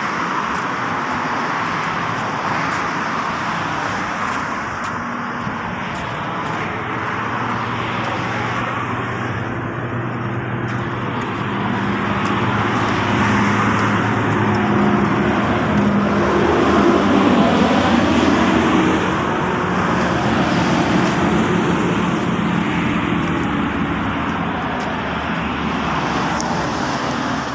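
Road traffic passing close by on a highway: a steady rush of tyre and engine noise, with one vehicle passing louder a little past the middle.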